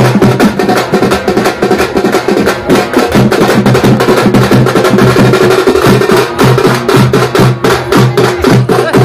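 Dappu drums beaten fast with sticks in a dense, driving rhythm, over a steady low pitched tone.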